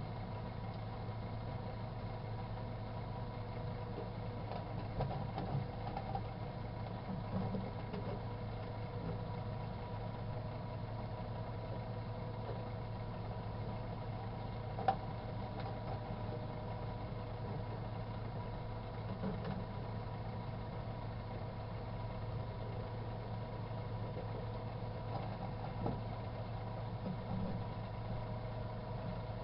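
Microwave oven running with a steady hum, with a few faint pops and one sharper click about halfway through as the yogurt inside heats.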